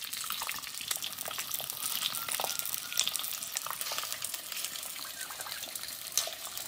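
Thin beef steak frying in hot oil in a pan: a steady sizzle with many small crackling pops.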